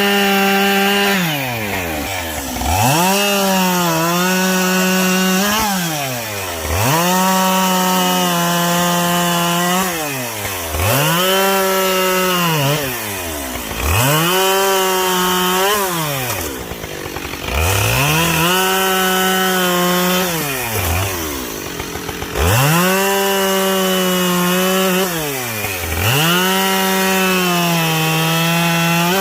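Two-stroke chainsaw bucking logs, cut after cut: the engine revs up to full throttle, its pitch sags slightly under load through each two-to-three-second cut, then drops back toward idle before the next one. About seven cuts follow one another.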